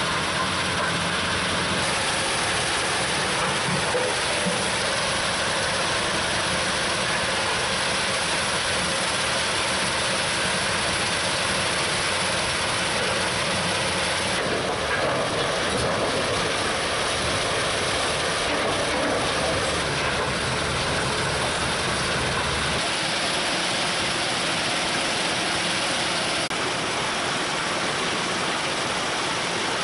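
GIPO Giporec R 100 FDR mobile jaw crusher running under load: engine, crushing jaw and conveyors in a steady, loud mechanical din, with crushed stone pouring off the discharge conveyor. The din's character shifts slightly about halfway through.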